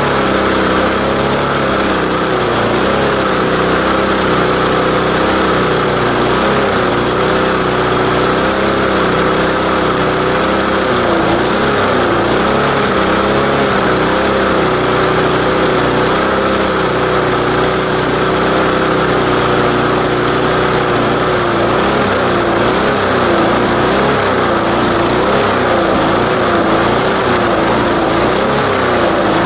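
Briggs & Stratton 3.75 HP single-cylinder four-stroke lawnmower engine running on straight paint thinner at a steady speed. About two-thirds of the way through, its speed begins to rise and fall.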